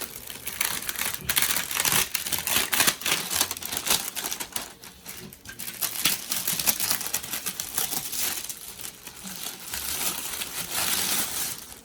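Plastic wrapping being pulled off a new LED floodlight: irregular crinkling and crackling of the plastic, with short tearing sounds.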